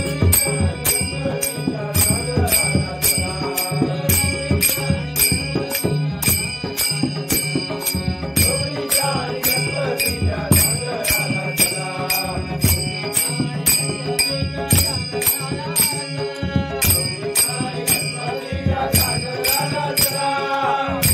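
Devotional bhajan: men singing to a harmonium and hand drums. Large brass hand cymbals (taal) strike a steady beat of about two to three clashes a second.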